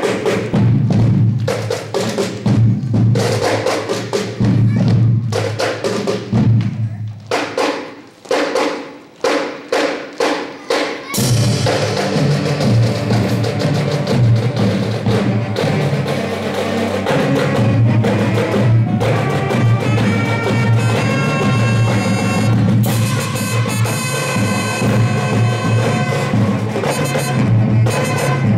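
High school marching band playing: about the first ten seconds are drum strikes alone, then the full band with brass comes in on a crash about eleven seconds in and plays on with sustained chords.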